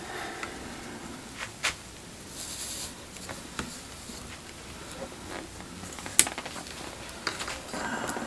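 Metal tweezers clicking and tapping against the opened iPhone's battery and frame as it is pried at: a few light, sharp clicks, the clearest about six seconds in, with soft handling and scraping noise between.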